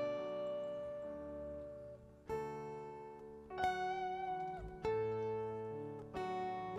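Slow, soft instrumental music from the worship band: ringing plucked chords, a new one struck every second or so and left to fade.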